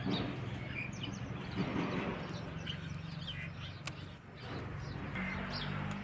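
Small birds chirping now and then over a steady low hum of outdoor ambience, with a single sharp snap just before four seconds in as leafy plants are picked by hand.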